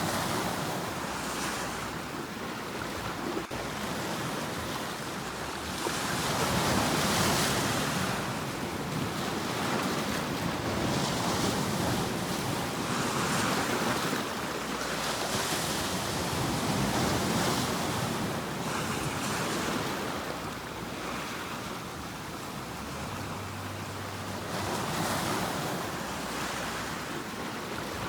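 Sea waves breaking and washing up the shore, the surf swelling and ebbing every few seconds as each wave comes in.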